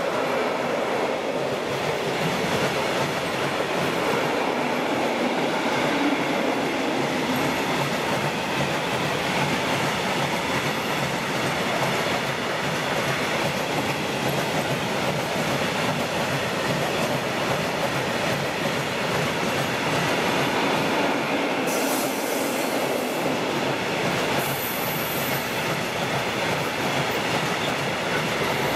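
Long train of open coal wagons rolling steadily past on the track, a continuous noise of wheels on rails.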